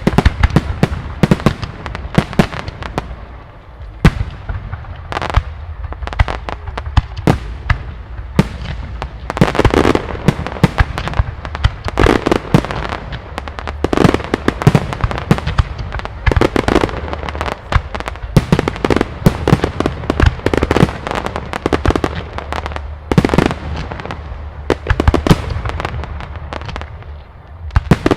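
Aerial fireworks display: a dense, continuous run of shell bursts and sharp reports, with crackling between the bangs.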